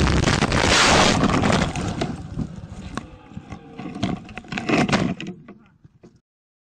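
Road crash: a loud impact with glass breaking and scraping, then the dash camera tumbling and clattering across the road with scattered knocks that die away, cutting off to silence about six seconds in.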